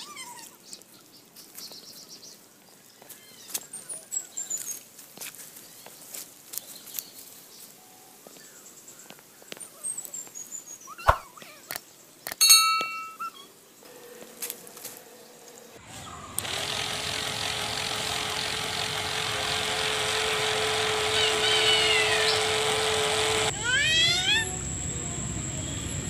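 Birds chirping beside a pond, with scattered small clicks. About two-thirds of the way through, a louder steady hiss with a steady humming tone comes in, and birds keep chirping over it.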